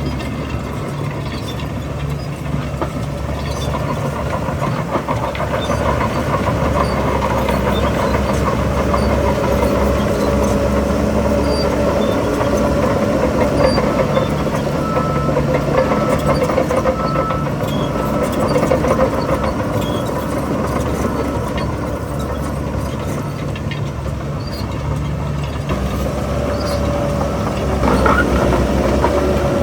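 Heavy diesel earthmoving machinery running and working under load, the engine swelling and easing, with a continuous metallic clatter and a faint high whine partway through.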